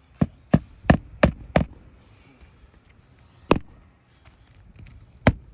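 Roofing nails being driven into asphalt shingles during a shingle repair: five quick sharp strikes in about a second and a half, then two more single strikes a couple of seconds apart.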